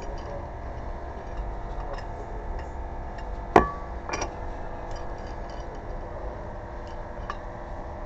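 Metal tools and hardware clinking during a tire change: scattered light ticks, then one sharp metallic clank with a brief ring about three and a half seconds in, and a lighter clink half a second later.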